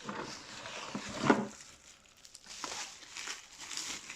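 Packaging crinkling and rustling as items are handled and pulled out of it, in irregular bursts with one sharper, louder crackle about a second in.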